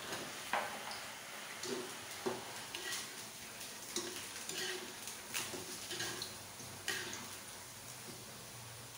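Saba banana slices frying in oil in a wok, a steady sizzle, while a metal spatula stirs and turns them, scraping and knocking against the wok about once a second.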